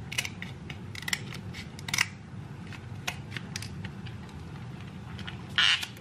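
Kitchen shears snipping and cracking through king crab leg shell: a scatter of sharp clicks and crunches, with a louder, longer burst a little before the end.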